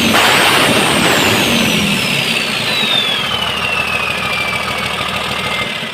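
Rebuilt Weichai turbo diesel engine running, with a high turbocharger whistle that glides steadily down in pitch as the engine comes back down from a rev; the overall sound eases slowly in loudness.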